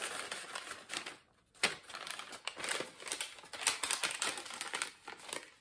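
A bag rustling with irregular light clicks and taps as small items are handled and packed back into it.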